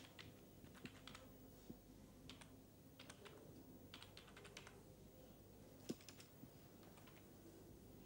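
Faint tapping of computer keyboard keys in short irregular bursts, with one louder single knock about six seconds in.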